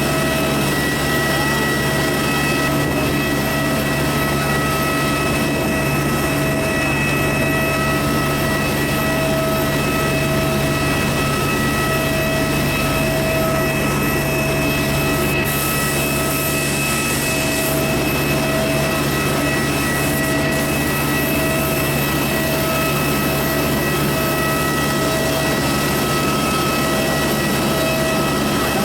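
Steady cabin noise inside an Airbus A320 taxiing after landing: the jet engines idling with a constant rushing sound and several steady whining tones.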